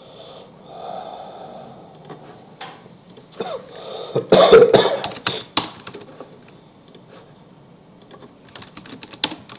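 Computer keyboard typing and clicking in scattered taps, with a loud cough about four and a half seconds in that is the loudest sound. A quick run of key clicks comes near the end.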